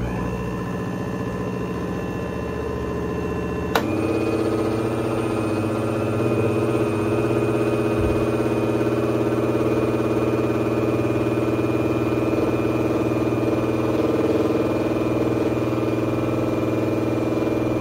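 Countertop blender motor running steadily. About four seconds in there is a click, and the pitch changes as it runs on a little louder.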